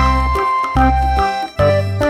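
Background music: a bouncy keyboard tune over a steady bass beat.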